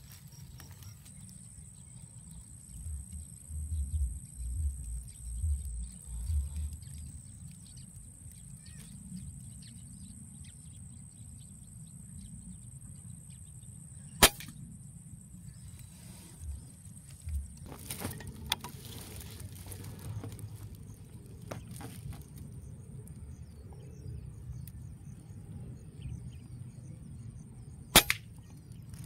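Two sharp air rifle shots, one about fourteen seconds in and one near the end. Between them come a few seconds of low bumps of rifle handling and some lighter ticks, over a faint steady high whine.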